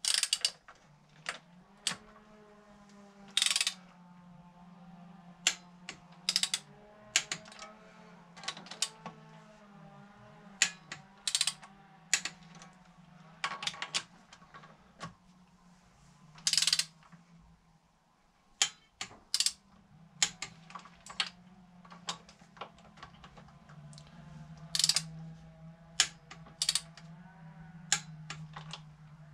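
Ratchet wrench clicking in irregular runs as cylinder head bolts are run down and seated one by one, with sharp metallic knocks and clatter of the tool on the head, over a steady low hum.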